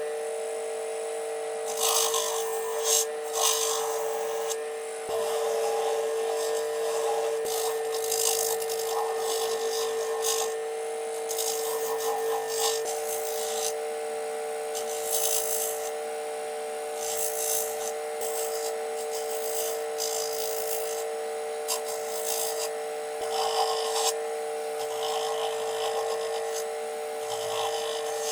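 Electric polishing motor running at a steady high whine while a spinning buffing wheel is pressed against stainless steel watch parts in short, repeated passes, each pass a brief hissing rub.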